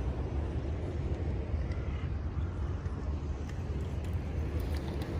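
Steady, uneven low rumble of wind on an iPhone's microphone, over faint outdoor background noise.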